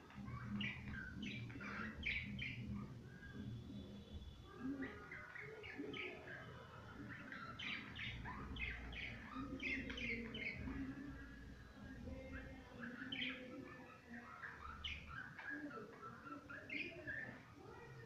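Budgerigars chattering and warbling: a near-continuous stream of short chirps and squeaky notes.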